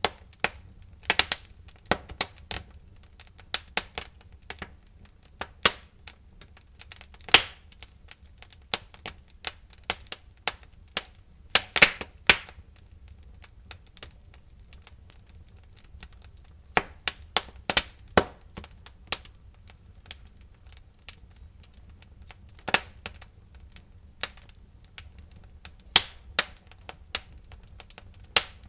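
Wood fire in a fireplace crackling: irregular sharp pops and snaps, sometimes in quick clusters and sometimes a few seconds apart, over a faint low rumble.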